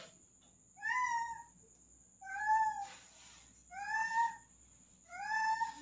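A domestic cat meowing four times, one call about every second and a half, each a short arched cry: a cat stuck up high and afraid to jump down.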